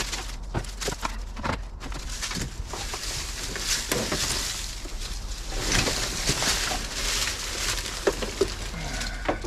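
Irregular rustling, scraping and knocking of debris being pulled and cleared out of an old car's interior, with a longer stretch of rustling about four to seven seconds in.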